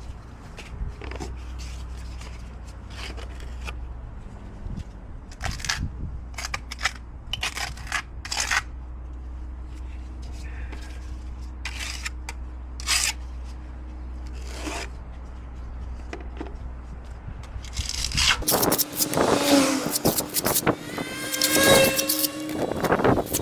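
Trowel scraping cement onto a cracked concrete wall in short separate strokes, over a steady low rumble. Near the end the scraping and rubbing become louder and more continuous, with some squeaks.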